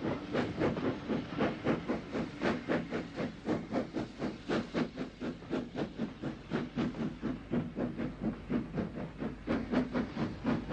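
Great Southern-built 0-6-2 tank steam locomotive working a train, its exhaust beating evenly at about four chuffs a second over a steady hiss of steam.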